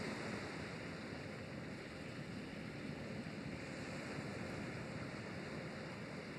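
Steady wind and river water noise, an even rushing with no distinct events.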